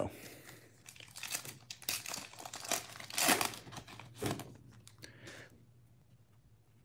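Foil wrapper of a trading-card pack crinkling and tearing as it is ripped open by hand: an irregular run of crackles, loudest a little past the middle, that stops about five and a half seconds in.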